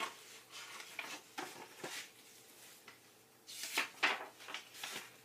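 A paperback picture book being opened and its pages turned by hand: a string of short paper rustles and swishes, the loudest near the end as the pages flip over.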